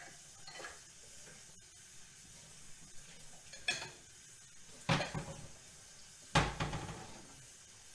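Bowls clattering as they are taken out of a kitchen cabinet: small clicks, then three sharp clacks of dishes knocking together about a second apart, the last two the loudest.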